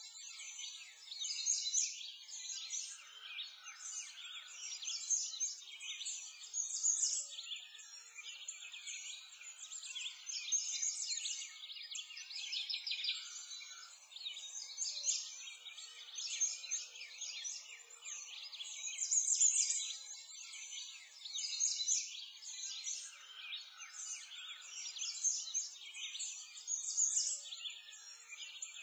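A dense chorus of many small songbirds chirping and trilling continuously, with loudness swelling and easing every few seconds: a birdsong ambience track.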